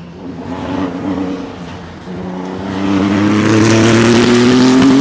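GT racing car's engine on a circuit, accelerating. The engine note climbs slowly in pitch and grows louder from about three seconds in.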